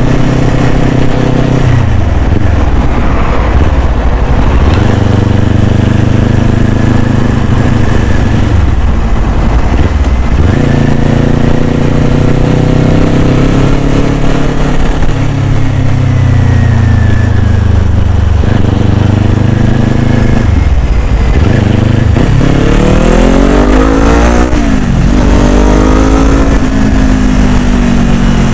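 Motorcycle engine under way, its pitch climbing as it revs up and dropping sharply several times, with a quick climb and fall near the end.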